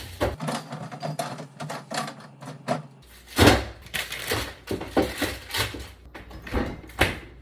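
Irregular knocks, clatters and rustling of containers and fridge parts being handled while a refrigerator is cleared out, with the loudest knock about three and a half seconds in.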